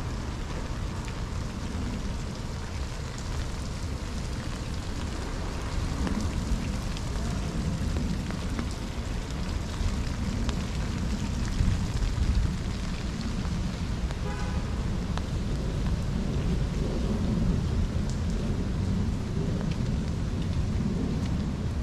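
Steady rain falling, with scattered drops ticking close by over a low, even rumble. A short run of quick high pips sounds about halfway through.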